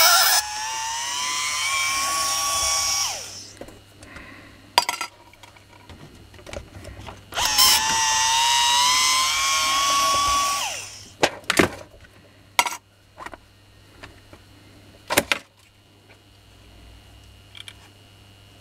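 Corded electric screwdriver running in two bursts of about three seconds each, driving out the screws of a Makita hammer's handle housing; its motor whine rises slightly at the start of each burst, then holds steady. Between the bursts and after them come several sharp clicks and knocks of the plastic housing being handled.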